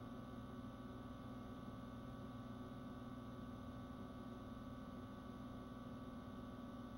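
Faint steady hum with a few fixed tones over low hiss, unchanging throughout, with no distinct events.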